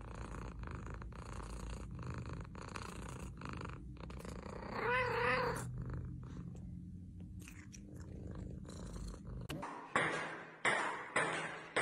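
Domestic cat purring steadily while being scratched on the head, the rumble pulsing evenly with its breaths. About five seconds in, the cat gives a brief wavering cry as it yawns. Near the end the purring stops and a few short, sharper sounds follow.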